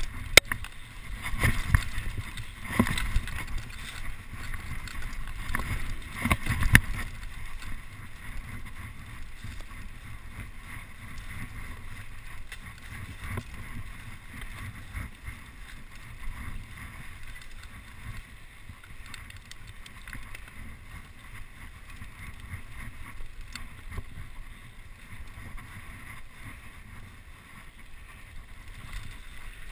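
Mountain bike descending a dirt singletrack, heard from a camera worn by the rider: wind buffeting the microphone over the rumble of tyres on dirt and the bike rattling. Several sharp knocks from bumps come in the first seven seconds, after which the rumble runs steadier.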